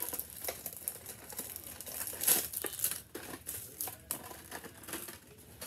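Wrapping on a box of chocolates crinkling and tearing as it is opened, in a run of irregular crackles, loudest about two seconds in.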